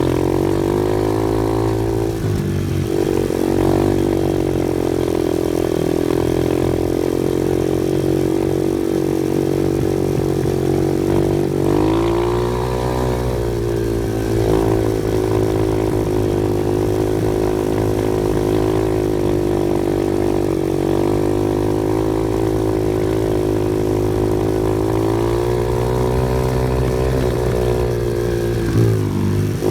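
Off-road vehicle engine running steadily, its revs dropping and climbing again several times as it works along the trail.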